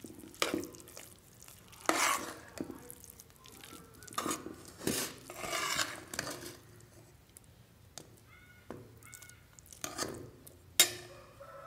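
Metal spoon stirring and scraping thick cooked rice in a pressure cooker pot, with irregular scrapes and clinks against the pot's sides. A sharp knock near the end.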